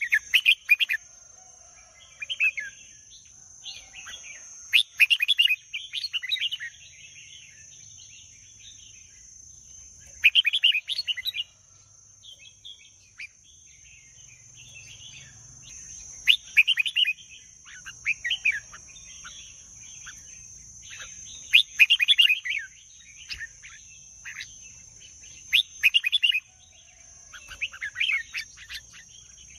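Red-whiskered bulbul singing: short, lively whistled phrases, one every couple of seconds, with brief pauses between them.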